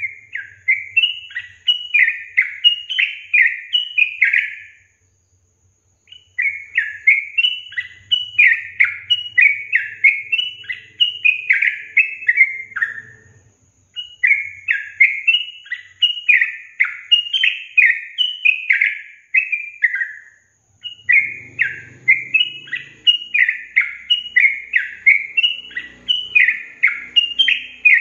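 Yellow-vented bulbul (trucukan) song: long runs of quick, chattering, bubbly notes, several a second, broken by short pauses every five to seven seconds.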